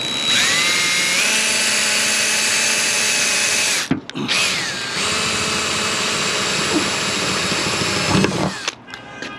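Power drill running in two spells of about three and a half and four seconds with a brief stop between, its whine rising as it spins up at the start, drilling a hole for a 1/8-inch pop rivet.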